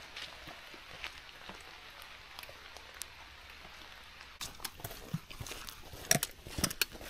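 Footsteps that pause and then start again about four seconds in, with irregular knocks of steps over a steady soft hiss.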